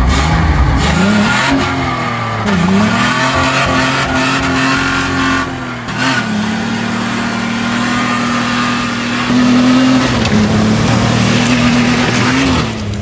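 Truck engine revving hard under acceleration. Its pitch climbs, dips about two and a half seconds in, breaks again near six seconds, then holds high and steady before falling off near the end.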